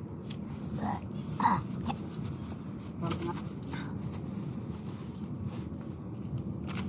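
A dog giving a few short whining cries, the loudest about a second and a half in, with a few light clicks.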